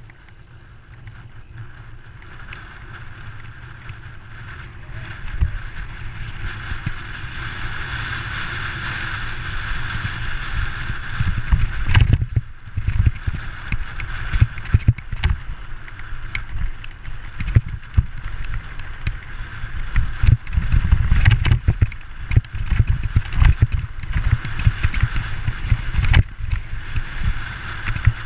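Giant Trance Advanced full-suspension mountain bike ridden fast over a rocky moorland track: tyres rumbling over stones, with frequent sharp knocks and rattles from the bike as it hits rocks. The rumble builds as the bike gathers speed over the first ten seconds, and the hardest knocks come about twelve seconds in and again around twenty to twenty-two seconds.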